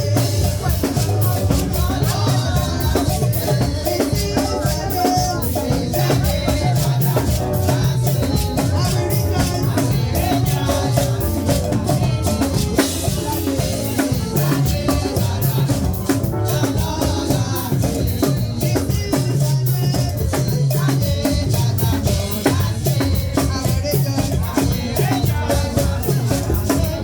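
Live church praise music: a band plays a lively chorus with drum kit and shakers (rattles) driving a steady beat over a bass line.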